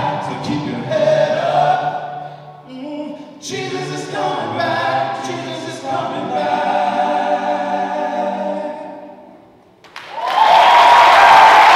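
A large choir of young mixed voices sings the closing phrases of a gospel song, ending on a long held chord that fades away. About a second later an audience breaks into loud applause.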